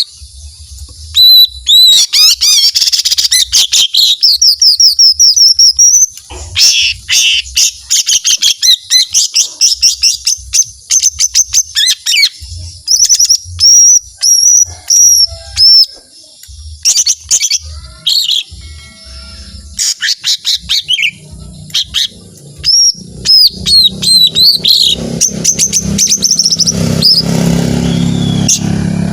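Lesser green leafbird (cucak ijo mini) singing hard in long, rapid strings of high whistled notes and fast trills, broken by short pauses: the long 'tembakan' burst song that keepers prize. A low hum comes in under the song in the last third.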